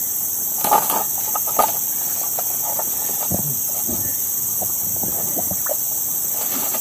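Steady high-pitched insect chorus, with scattered rustles and knocks of leaves and a woven basket as someone lifts it and steps through undergrowth; the handling noises are loudest about a second in.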